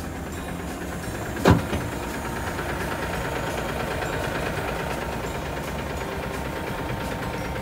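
Hino Profia truck's diesel engine idling steadily, heard from inside the cab. A sharp knock about a second and a half in, the loudest sound, is followed by a lighter one.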